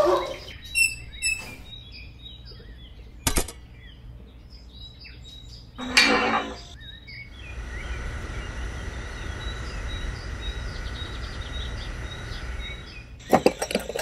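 Birds chirping in the background, a sharp click about three seconds in, then a small electric screwdriver whirring steadily for about six seconds as it drives a screw, ending in a few quick clicks near the end.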